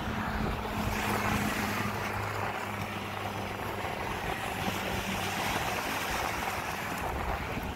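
Propeller airplane engine droning as a steady low hum that fades out about five seconds in, over the steady wash of surf breaking on the beach.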